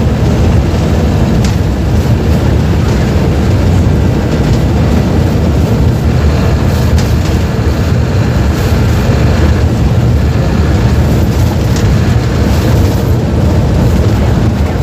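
Mercedes-Benz OF-1721 BlueTec 5 bus's four-cylinder diesel engine running steadily with a loud, low, even sound, and a few brief clicks or rattles.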